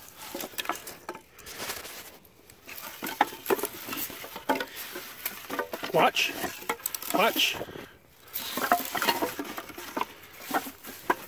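Old weathered wooden boards and stakes being shifted by hand in a pile, knocking and scraping against one another, with rustling in the plants around them.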